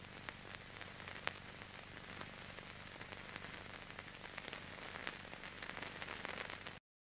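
Background noise of a 1945 sound-film soundtrack with no speech: a steady hiss with scattered crackles and clicks and a faint low hum. It cuts off abruptly shortly before the end.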